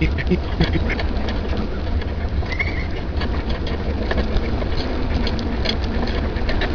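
Steady low wind rumble on the microphone of a camera riding on a bicycle, with many quick clicks and rattles from the bike rolling along the trail. A brief high chirp sounds about two and a half seconds in.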